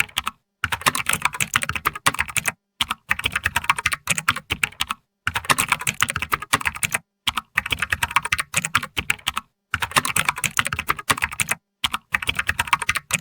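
Computer keyboard being typed on: rapid key clicks in runs of one to two seconds, broken by short pauses.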